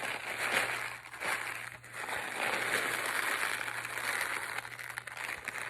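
Homemade rain stick made from a paper towel tube, tipped so its filling trickles through with a steady rain-like patter. The flow breaks briefly about a second in and again near two seconds, as the tube is turned over.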